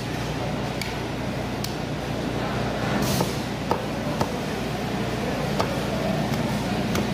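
Meat cleaver chopping into a large red snapper at the head end on a wooden chopping block: a string of short, sharp knocks, the two loudest close together about halfway through, over a steady low background rumble.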